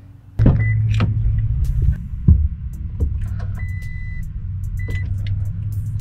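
A Toyota Tacoma's V6 engine running steadily, heard from inside the cab, starting suddenly about half a second in, with a few scattered clicks and knocks over it.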